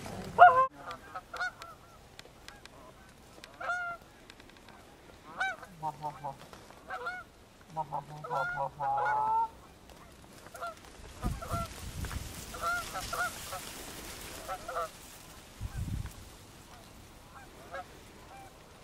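Canada geese honking over and over, short two-part honks at an uneven pace with a quick flurry of them about nine seconds in. Two low rumbles come partway through.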